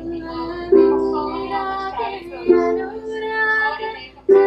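A ukulele strummed in slow chords, a new chord struck about every second and a half to two seconds, with a young girl's voice singing along.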